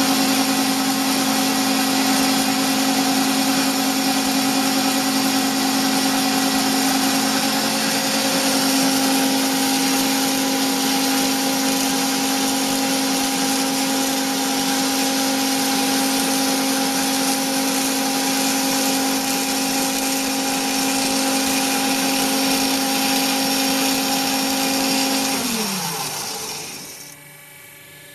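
Bigstone CF450 horizontal bandsaw running steadily through a demonstration cut, a steady hum with a hiss over it. About 25 seconds in the motor shuts off and winds down, its pitch falling, leaving only a faint hum.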